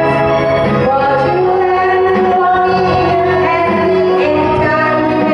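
A woman singing into a handheld microphone over a backing track, her amplified voice carried along with the accompaniment.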